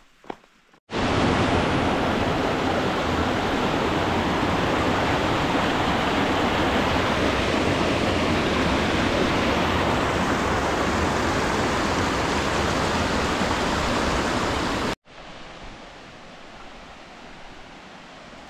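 Creek rushing over rocks: a loud, steady rush of white water that starts abruptly about a second in and cuts off a few seconds before the end, leaving a much quieter hiss.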